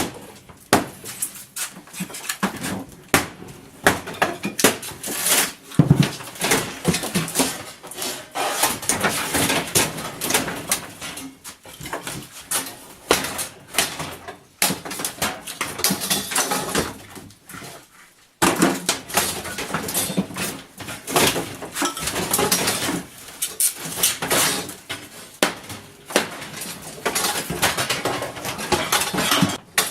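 Irregular knocking, scraping and clattering of hands and tools pulling up and handling old floor material, continuing with a break about 18 seconds in.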